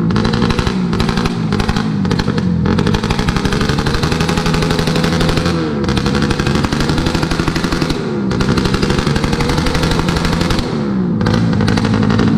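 Motorcycle with a loud, open aftermarket exhaust free-revving on a stand, held high and let drop and climb again several times, with a harsh, rapid firing note.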